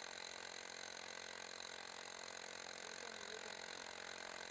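Milwaukee electric demolition hammer running, heard faintly as a steady, even noise with no separate blows standing out.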